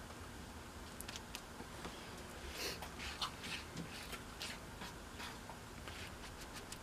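Faint, irregular scraping and sticky ticking of a flat wooden stir stick mixing two-part epoxy on a piece of card, busiest about three seconds in.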